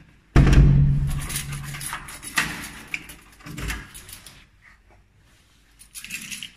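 Front door being opened by its lever handle, with a bunch of keys jangling in the lock. The loudest sound is a sudden knock about a third of a second in, followed by a few more knocks and clatters.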